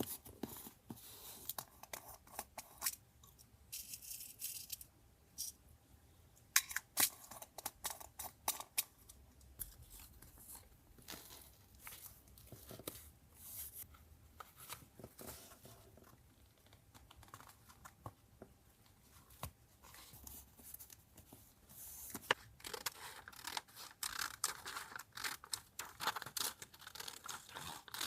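Paper being handled and torn for a collage, with scattered light taps and clicks, and a longer run of crinkly paper noise in the last several seconds.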